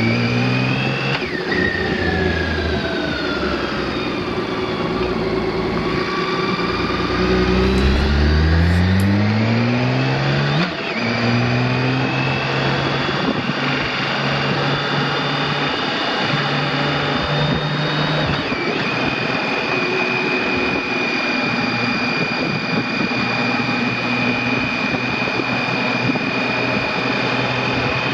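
A BMW K1600 GTL's inline-six engine pulls away through the gears. Its pitch climbs and then drops back with each upshift over the first dozen seconds, and the engine then runs at a steady, even cruise with a thin high whine above it.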